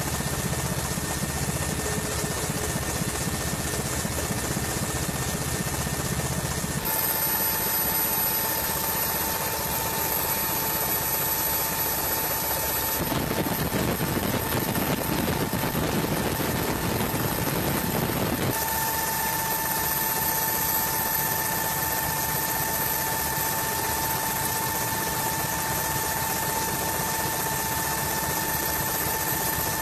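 Helicopter running steadily: a dense rotor and engine noise with a steady high-pitched whine, its tone changing abruptly three times.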